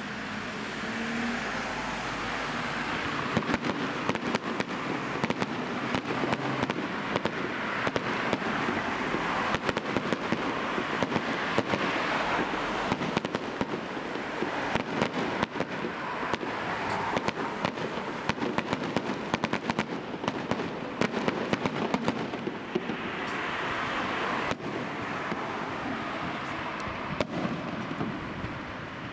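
Fireworks crackling: dense, rapid sharp pops over a rushing hiss that swells and fades several times.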